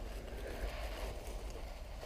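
Steady low rumble of wind on the microphone, with no distinct sound events.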